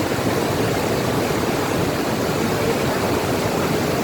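Steady rushing of the Cascata delle Marmore waterfall: an even, unbroken noise of falling water.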